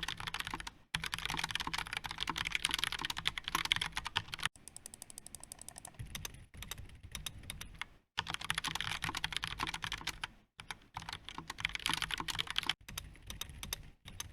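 Steady fast typing on computer keyboards in a sound test, in several cut segments: loud, dense clacking stretches alternate with quieter, softer typing.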